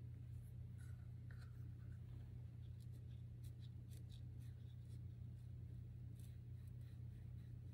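Colored pencil scratching faintly on pastel paper in short, irregular strokes, over a steady low hum.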